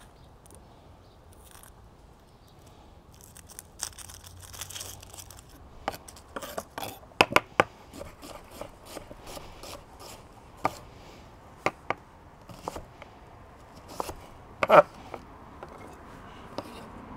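Chef's knife chopping an onion on a wooden cutting board: irregular sharp knocks of the blade on the board, after a short papery rustle of onion skin being peeled. Near the end the knife scrapes the chopped onion across the board.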